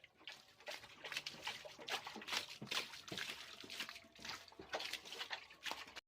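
Water dripping and trickling, with faint, irregular drips and small splashes several times a second.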